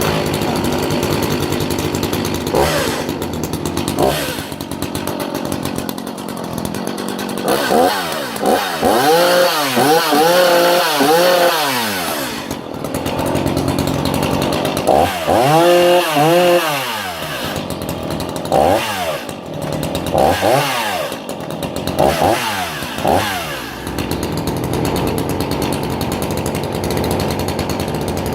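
Sachs Dolmar 133 two-stroke 85cc chainsaw starting at once and idling, revved up hard and held for a few seconds twice, around 8 and 15 seconds in, with several short throttle blips, each time dropping back to a steady idle.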